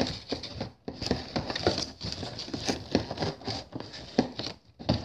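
Cardboard door of a Playmobil advent calendar being pulled open and a clear plastic bag of small parts taken out and handled: irregular crackling and crinkling.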